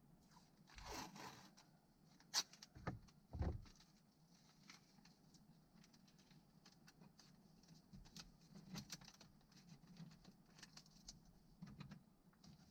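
Faint handling of painter's tape: a short rasp as tape is pulled off the roll about a second in, a few sharp clicks and taps over the next couple of seconds, then light scattered ticks as it is pressed onto the trim.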